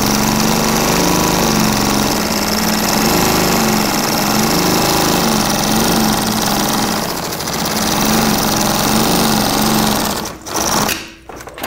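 Industrial sewing machine running steadily while stitching a zipper strip onto heavy canvas, its speed wavering slightly. It stops about ten seconds in, followed by a few sharp clicks.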